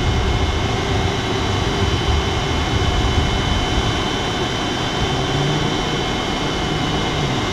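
Steady rush of air over the cockpit canopy of an Alisport Silent-in motorglider gliding with its engine stowed, with faint steady high-pitched tones over the wind noise.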